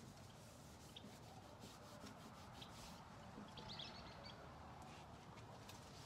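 Near silence: faint rubbing of a towel wiping down a mini fridge's metal cabinet, with a few faint bird chirps about three and a half seconds in.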